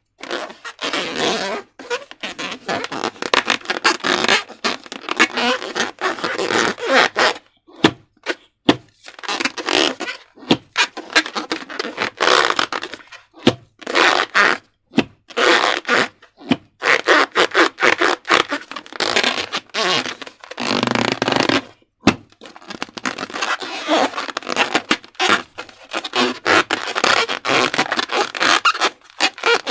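Slime squelching and squishing, with irregular wet, sticky bursts broken by brief pauses and a sharp click about two-thirds of the way through.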